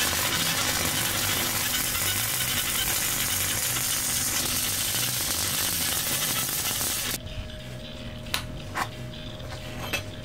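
Gasless flux-core MIG welder arc crackling steadily for about seven seconds as a weld is run on steel, then cutting off suddenly. A few sharp clicks and taps follow over a faint steady hum.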